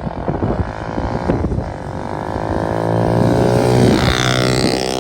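Dirt bike pulling away and speeding up, its pitch rising steadily to a peak about four seconds in, with a high whine over the top.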